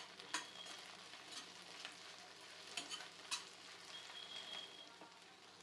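Food sizzling as it fries in oil in a pan, stirred with a spatula that knocks sharply against the pan about three times.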